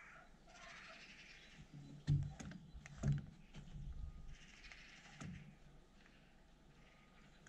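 Plastic rainwater downpipe being handled and pushed into its diverter fitting: a few sharp plastic knocks, the loudest about two and three seconds in, with rough hissy noise between them.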